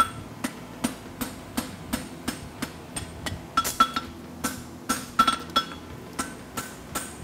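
Hammer blows on a red-hot steel horseshoe bar lying on an anvil, forging the shoe's heel. The strikes come steadily at about three a second, many of them followed by a short ringing tone.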